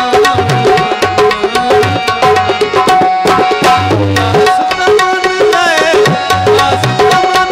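Instrumental break in a live folk song: tabla playing a steady rhythm over a held drone note, with a wavering melody about two-thirds of the way through.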